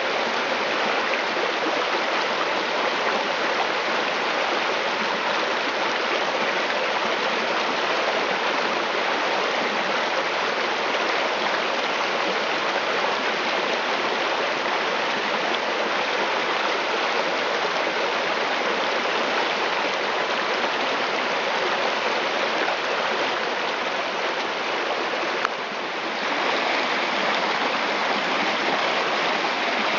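Shallow, rocky creek rushing steadily over stones and small riffles, with a short click and a brief dip near the end.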